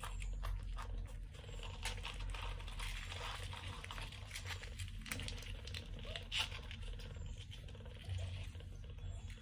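Mother cat licking a kitten's fur: a run of small wet clicks and smacks over a steady low hum.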